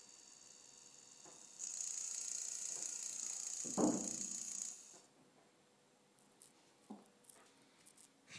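High-pitched electronic whine from a hobby ESC driving a brushed electric motor. It grows louder about one and a half seconds in, with a short lower buzz from the motor near four seconds, and stops about five seconds in. A few light clicks follow near the end.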